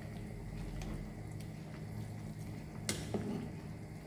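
A utensil stirring vegetable soup in a saucepan on a gas stove, with faint clinks and one sharper tap against the pot near three seconds in, over a steady low hum.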